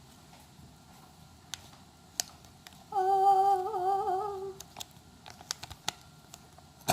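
A girl humming a short wavering tune for about a second and a half, with a few light clicks and taps before and after it.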